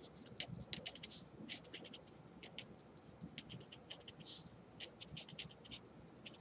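Faint marker pen scratching on paper in many short strokes as words are handwritten.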